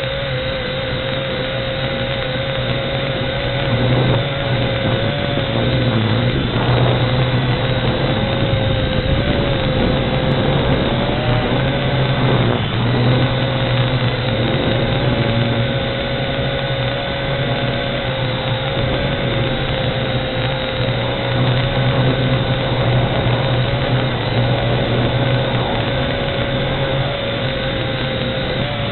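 Quadcopter's motors and propellers whining steadily over a dense rushing noise, the whine's pitch wavering slightly as the throttle changes.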